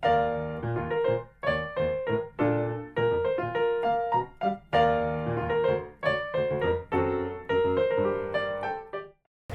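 Intro music on piano or electric piano: a run of struck keyboard notes and chords in a steady rhythm, cutting off just before speech begins.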